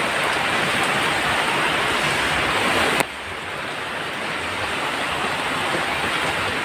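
Steady rain, an even hiss. About three seconds in there is a sharp click, and the rain sound drops in level, then slowly builds back up.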